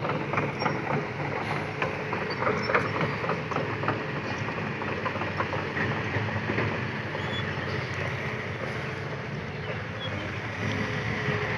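Kobelco SK200-8 Super XM hydraulic excavator running as it works, its diesel engine a steady low drone. Many sharp clicks and cracks sound over it in the first few seconds, thinning out later.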